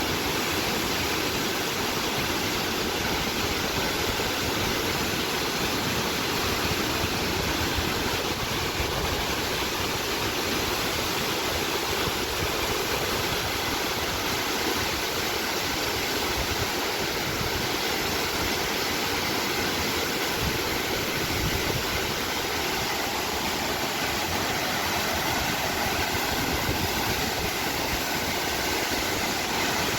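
Steady rush of mountain water, an even noise across all pitches that does not change.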